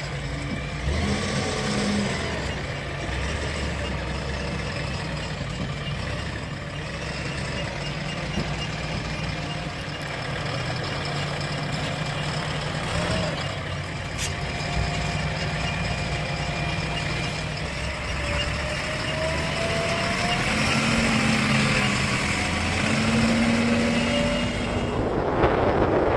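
Diesel engines of a JCB 3DX backhoe loader and tractors running steadily. In the last few seconds a pitched whine rises and holds, and the engines get louder.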